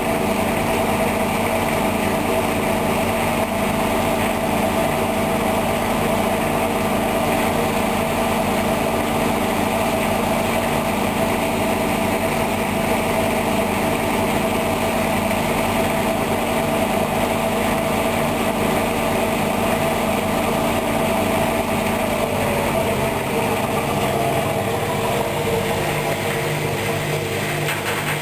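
Hoover washing machine's drum spinning on the wool programme, a steady motor hum with several tones; about 23 seconds in the motor pitch falls as the spin slows down.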